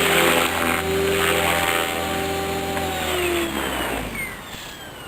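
MSH Protos electric RC helicopter's brushless motor and rotor running at a steady whine, then spooling down: the pitch falls from about three seconds in and the sound fades near the end as the head winds down.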